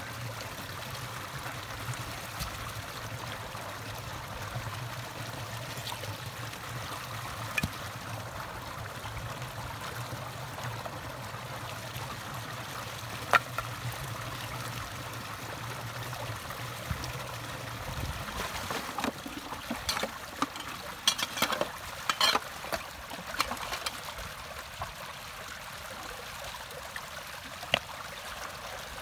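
Muddy water gushing out of a culvert cleared of a garbage clog and rushing down a ditch, a steady wash of water. Sharp splashes and clatters from gloved hands working in the flow break in now and then, most thickly a little past the middle.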